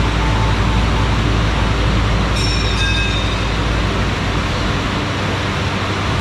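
Morbidelli P200 CNC woodworking machining centre running, giving a loud, steady mechanical noise with a low hum, and a brief higher whine about two and a half seconds in.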